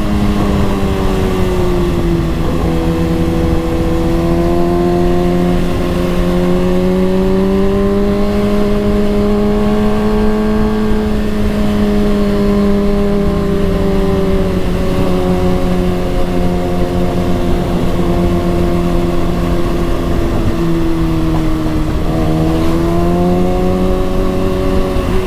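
Kawasaki ZX-6R 636's inline-four engine running while riding at fairly steady revs. Its pitch rises and falls gently, dipping briefly about two seconds in and again near the end.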